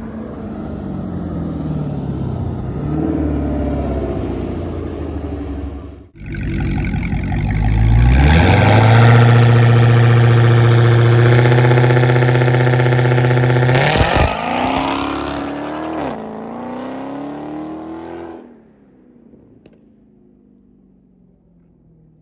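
Supercharged Hemi V8 of a Dodge Charger Hellcat. A car accelerates in the distance; then, up close, the engine is revved and held at steady high revs for about six seconds, launches with a sharp crack, and pulls away, the sound fading out in the last few seconds.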